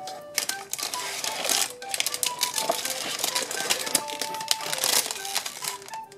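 A clear plastic bag crackling and crinkling as it is pulled out of a cardboard box and handled, with soft background music playing a simple melody of single notes.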